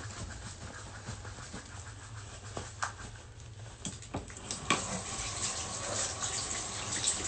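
Scattered light knocks and clicks of things being handled over a low steady hum. About five seconds in, a steady hiss of running water sets in and carries on.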